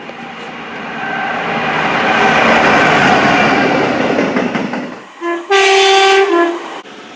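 Train running past, its noise swelling and then fading, followed by its two-tone horn: a short blip, then a long high note that drops to a lower note.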